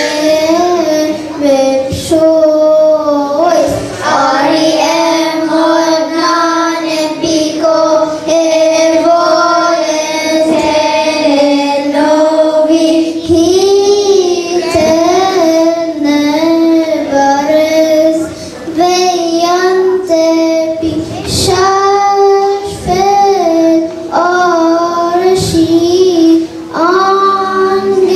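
Children's choir singing a hymn together, following one melody line.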